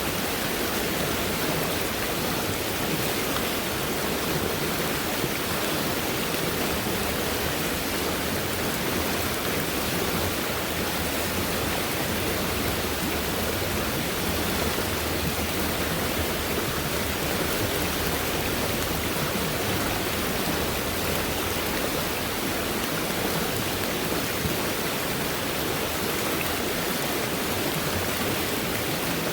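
Fast-moving stream running high after heavy rainfall: water rushing in a steady, unbroken flow.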